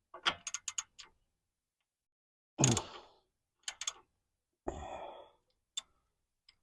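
A man sighs and grunts with effort while working a wrench on a power steering hose fitting, with short sharp clicks from the tool.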